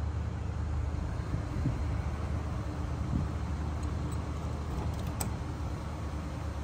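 Car engine idling steadily with a low rumble, a few light clicks about five seconds in.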